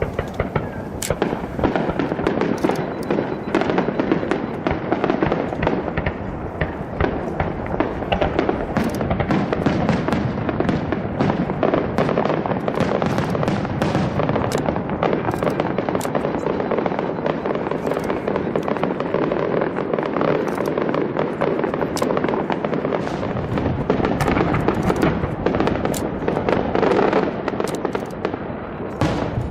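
Fireworks display: a dense, continuous barrage of bangs and crackles that eases off just before the end.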